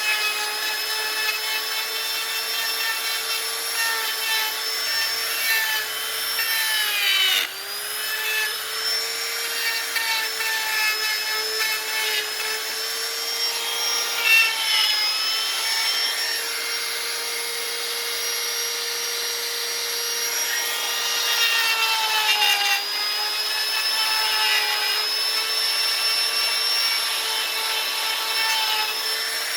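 High-speed electric power carving tool running against wood with a steady whine. Its pitch sags briefly twice, about 7 seconds in and again near 22 seconds, as it is pressed into the cut.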